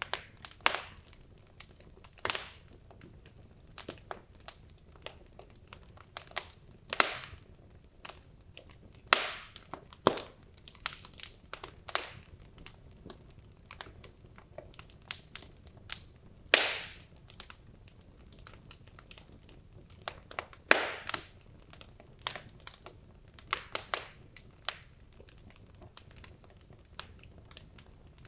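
Burning wood logs crackling in a fireplace: irregular sharp pops and snaps a few times a second, with several louder pops that trail off in a brief hiss.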